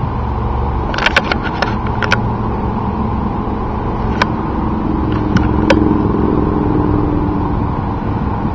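Steady rumble of road traffic, with a handful of sharp pops: a quick cluster about a second in and a few single ones around four to six seconds.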